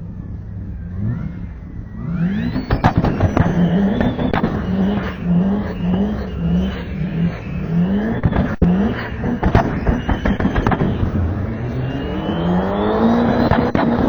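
Turbocharged car engine revved in quick repeated blips, with turbo flutter chatter as the throttle snaps shut and a high turbo whistle that climbs in pitch near the end.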